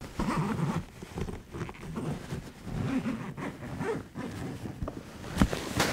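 Fabric rustling and shuffling as a person moves about inside a soft-sided suitcase, the lid and lining rubbing against her, with two sharp knocks near the end.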